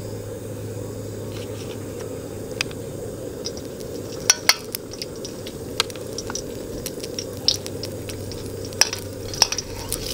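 Planta margarine spooned into hot oil in a wok, sizzling and crackling as it melts, with sharp clicks of a metal spoon scraping and tapping the plastic tub, thicker from about four seconds in. A steady low rush runs underneath.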